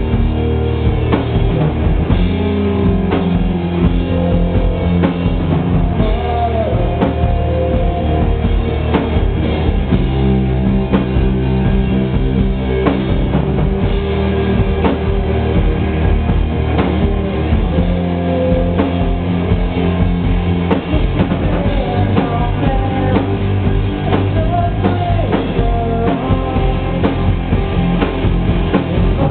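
Rock band playing live: drum kit and guitars over sustained chords that change every few seconds.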